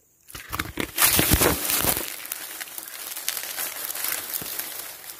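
Loud crinkling and rubbing close to the microphone as the phone is handled with its lens covered. It is loudest about a second in, then settles into a steadier rustle.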